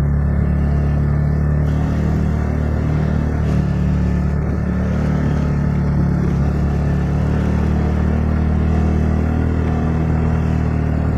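Motor scooter engine running at a steady pace while riding along a rough dirt road, a steady low drone.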